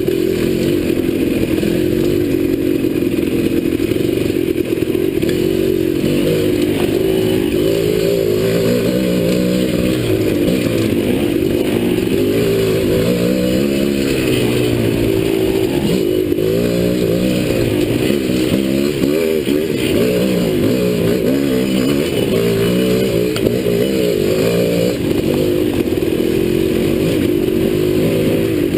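Dirt bike engine heard up close from on board, revving up and down over and over as it is ridden along a rough woodland trail.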